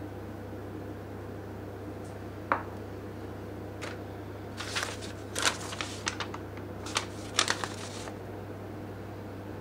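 Small objects being handled on a desk: a single sharp click, then a few seconds of light clicks and rustles near the middle, over a steady low hum.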